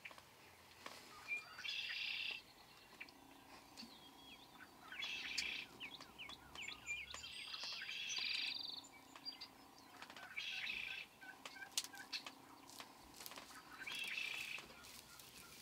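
Wild turkey gobblers gobbling, about five rattling gobbles a few seconds apart.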